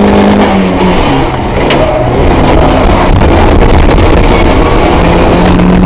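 Rally car engine running hard at speed over a dense, steady rush of road noise. Its note drops away about a second in and comes back near the end, with a few sharp clicks along the way.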